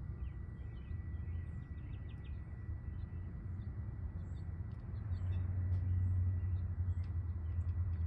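Faint, scattered bird chirps over a steady low outdoor rumble that grows louder about five seconds in, with a thin steady high tone running underneath.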